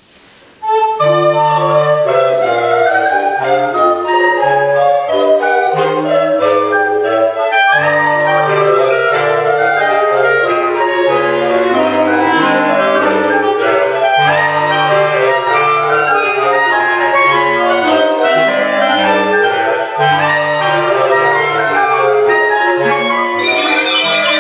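A clarinet choir of soprano and bass clarinets starts playing together about a second in, the bass clarinets carrying a moving low line under the melody. Near the end a mallet instrument joins with bright ringing notes.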